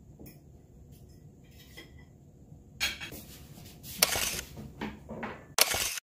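Cutlery and dishes clinking: a few light ringing chinks at first, then louder clattering over the last three seconds, which cuts off suddenly.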